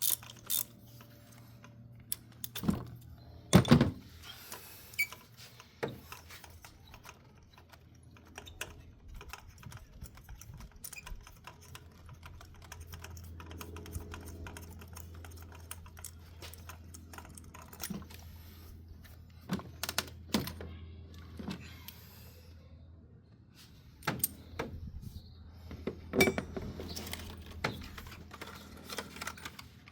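Scattered clicks and clinks of metal hand tools, sockets and a ratchet, being handled while working on the engine. A low steady hum runs through the second half.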